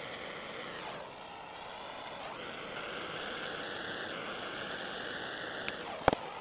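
Handheld gas torch flame hissing steadily while it heats a steel screw to blacken it. Two sharp clinks near the end.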